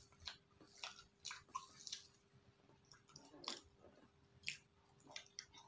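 Soft close-up eating sounds of ice cream taken from a spoon: about nine scattered wet mouth smacks and small clicks.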